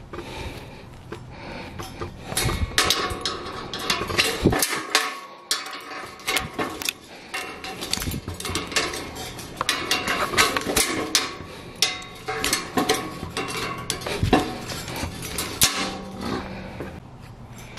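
Steel tie wire being wrapped and twisted around rebar intersections with ironworker's pliers to make single-wire figure-eight ties: irregular, rapid metallic clinks, clicks and scrapes of pliers and wire against the rebar.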